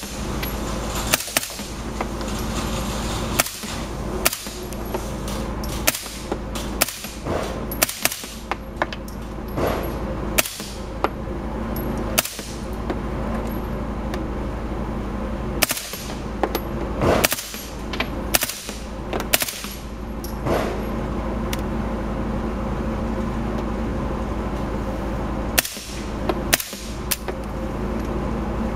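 Integrally suppressed 9 mm HK MP5-SD submachine gun fired shot by shot: a string of sharp single shots at irregular intervals, some in quick pairs, over a steady low hum.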